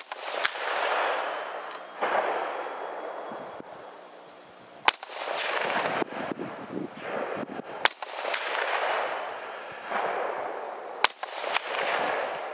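Four shots from a .300 Blackout rifle: the first at the start, then about 5, 8 and 11 seconds in. Each sharp report is followed by a long echo that fades over two to three seconds.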